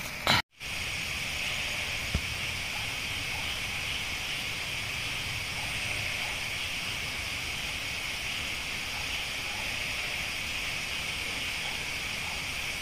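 Steady, high-pitched chorus of night insects in a tropical forest, even and unbroken. It follows a short burst at the very start and a moment of silence at a cut.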